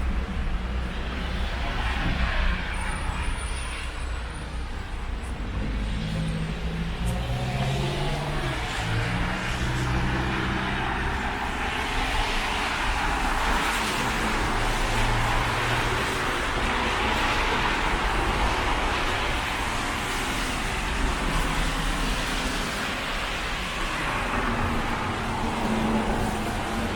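City road traffic: vehicles passing with their engines running and tyre noise that swells and fades as they go by, over a steady low rumble.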